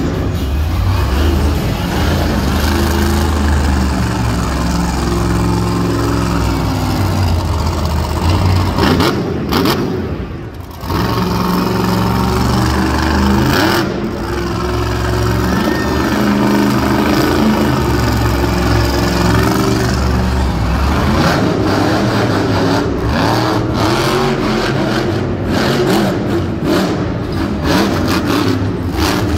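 Grave Digger monster truck's supercharged V8 revving hard as the truck drives and wheelies, the engine pitch rising and falling with the throttle. The engine eases off briefly about ten seconds in, then revs up again.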